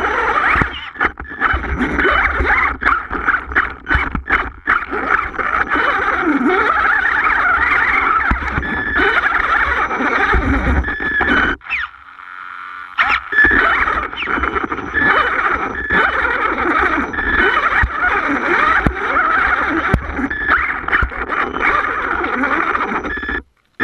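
HPI Savage Flux brushless electric RC monster truck crawling over river rocks: a loud, wavering motor and drivetrain whine, with knocks and scrapes as the chassis and tyres hit stones, most often in the first few seconds. The whine drops out for about a second halfway through and resumes. Everything cuts off suddenly just before the end.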